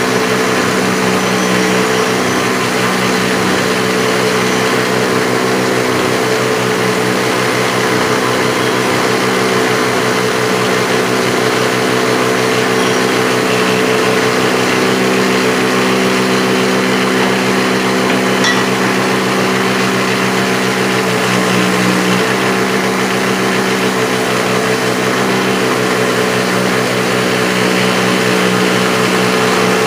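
Bench grinder with a wire wheel running steadily, a metal mower part held against the spinning wire brush to clean off rust and old grass. A steady motor hum sits under a continuous scratchy hiss of the bristles.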